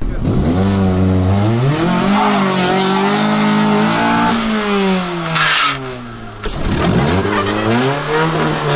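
A car engine revving hard: its pitch climbs, holds, then falls about four to five seconds in, and after a short dip it revs up again near the end. A short rushing noise sounds just after the first fall.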